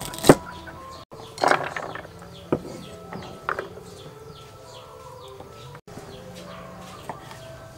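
A cleaver chops through long beans onto a thick wooden chopping board with one sharp knock near the start, followed by a few softer knocks and rustles. Chickens and small birds call and chirp in the background throughout.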